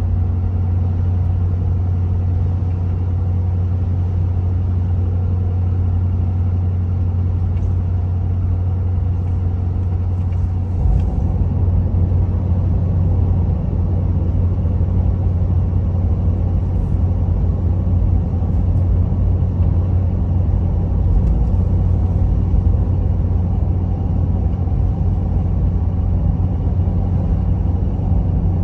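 Cab interior of a Ford 6.7 Powerstroke V8 turbo-diesel truck cruising at about 60 mph on a 4-inch exhaust with no muffler or resonator: a steady low exhaust drone mixed with all-terrain tire hum. About eleven seconds in, the drone shifts lower and grows a little louder.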